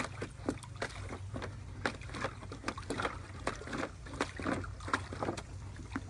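Water splashing and sloshing in a paddling pool as a dog moves about in it: a quick, irregular run of small splashes, several a second, throughout.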